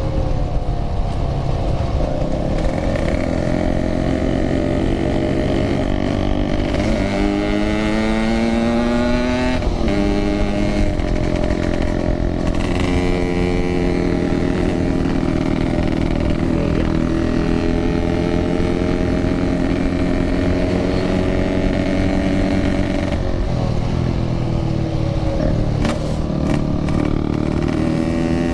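Yamaha RX-King 135cc two-stroke single-cylinder motorcycle engine running through a Packing Power exhaust while riding. The pitch rises as it accelerates, drops at a gear change about ten seconds in, then holds fairly steady, dipping and picking up again near the end.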